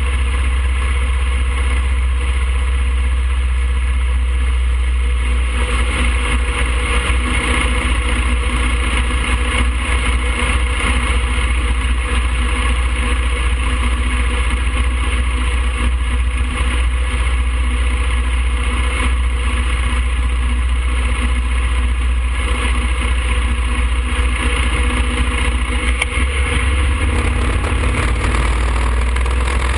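A 2007 Harley-Davidson Fat Boy's air-cooled Twin Cam 96 V-twin running steadily as the motorcycle cruises along the road, heard from a camera mounted on the bike.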